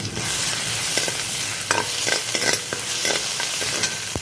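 Oil sizzling in a wok as ginger, garlic and gram flour fry. A steel ladle stirs and scrapes against the pan, with a scatter of sharp clicks where it knocks the metal.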